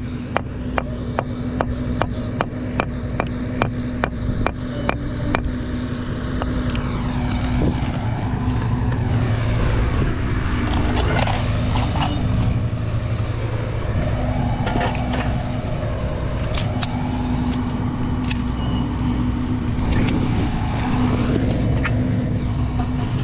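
A car running steadily, its low engine and road hum continuous throughout. A fast, even ticking, about three ticks a second, stops about five seconds in.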